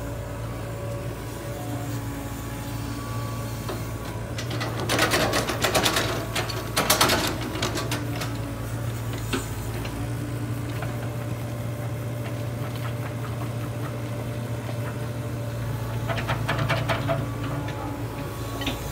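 An engine running steadily, with bursts of rattling and clattering about five seconds in and again near the end.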